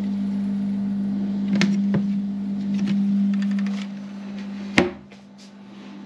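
Steady low hum of an F40C4TMP portable 12-volt fridge running, with a few light handling clicks. About five seconds in its lid shuts with a single sharp thump, and the hum is quieter afterwards.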